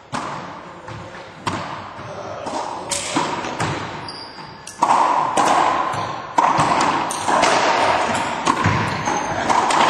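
Racquetball rally: the rubber ball struck by racquets and smacking off the court's walls and floor, a string of sharp cracks about once a second, each echoing in the enclosed court. The hits grow louder from about five seconds in.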